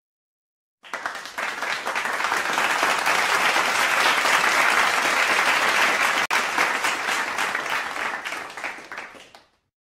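Crowd applause: many hands clapping together, starting about a second in, holding steady, then fading out near the end.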